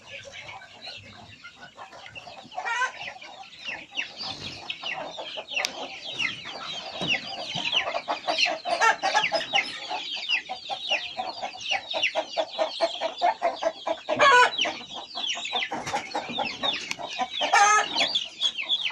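A flock of ayam kampung (Indonesian free-range village chickens) clucking: a dense chorus of short repeated calls that builds about two or three seconds in and grows louder, with a couple of louder single calls standing out later on.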